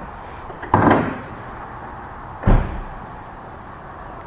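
Two thunks from a car about two seconds apart, the second deeper and heavier: the driver's door of a Kia Stinger being worked and shut.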